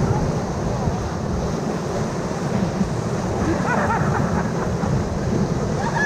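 Whitewater rapid rushing and crashing over the bow of a river raft, a heavy, steady rumble close to the camera. Faint shouts from the crew come through about four seconds in.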